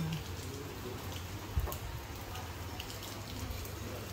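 Light rain falling and dripping, heard as scattered faint drips over a steady low hum, with one soft knock about one and a half seconds in.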